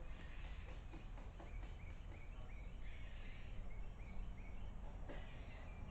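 A small bird calling a run of short, high chirps, about three a second, starting a little over a second in and lasting about three seconds, over a steady low background rumble.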